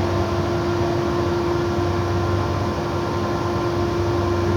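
A steady mechanical hum: one constant tone over an even hiss, unchanging throughout.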